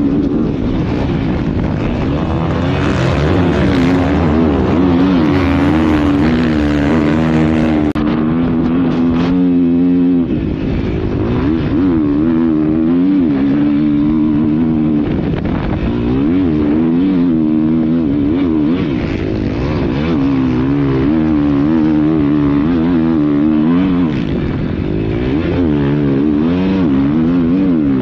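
Motocross bike engine running hard at racing speed, recorded from the bike itself. Its pitch rises and falls repeatedly as the throttle is worked and gears are shifted, with a brief drop in the engine note about ten seconds in.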